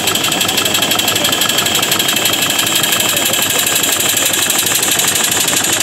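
Compressed-air-driven engine of a hand-built scale model half-track tractor running steadily with a rapid, even mechanical beat.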